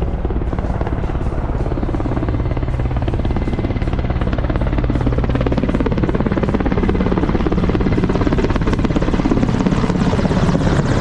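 A large helicopter flies low overhead, its rotor chopping steadily over a low engine drone.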